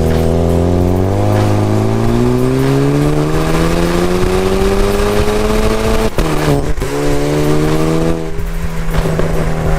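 Muffler-deleted exhaust of a Cadillac ATS turbocharged four-cylinder, loud, as the car accelerates with the engine pitch climbing steadily for about six seconds. The pitch then drops sharply with a brief break, as at an upshift, and the engine carries on at a steady lower pitch.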